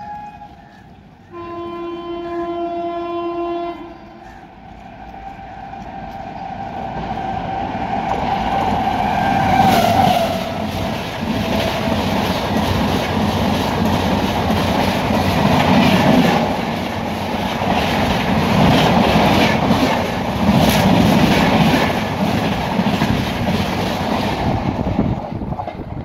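Express train horn sounding a long blast, then the express approaching and passing close at high speed. The roar builds steadily, and a horn note drops in pitch about ten seconds in as the locomotive goes by. The coaches then rush past with rapid clickety-clack of wheels over rail joints until the sound falls away near the end.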